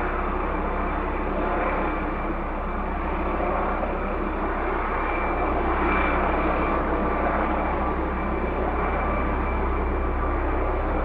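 Helicopter in flight: a steady rotor and engine sound with a deep low rumble, swelling slightly about halfway through.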